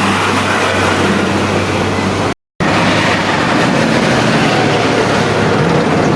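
Excavator running at work: a loud, steady mechanical din with an engine hum underneath. The sound drops out completely for a moment about two and a half seconds in.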